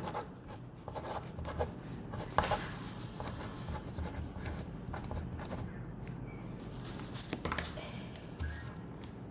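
Light handling noises: scattered soft clicks and knocks with some rubbing and scratching.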